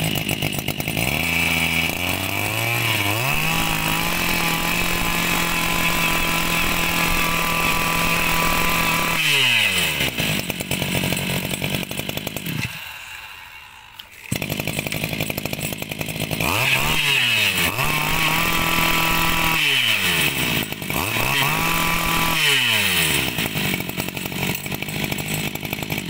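A 26 cc two-stroke brush cutter engine idling and being revved hard several times: one long rev held for about seven seconds, then three shorter ones, dropping back to idle in between and briefly falling nearly quiet about halfway through. It picks up throttle smoothly without stumbling or cutting out, a sign of good fuel delivery from its two-needle carburettor.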